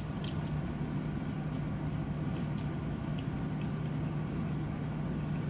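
A person eating cellophane noodles off chopsticks: a few short slurps, smacks and clicks, the first right at the start as the noodles are sucked in. Under it a steady low hum.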